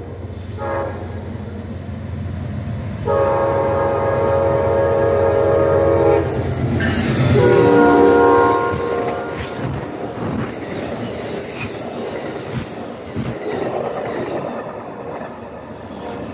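Amtrak GE Genesis P42DC diesel locomotive sounding its multi-chime air horn for a grade crossing: a short toot, a long blast, then a final, loudest blast that drops in pitch as the locomotive goes by. The train's rumble and wheel clatter over the rail joints follow as the passenger cars roll past and away.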